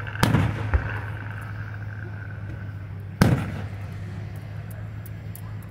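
Aerial firework shells bursting: two loud booms about three seconds apart, the first followed by a smaller bang, over a steady low hum.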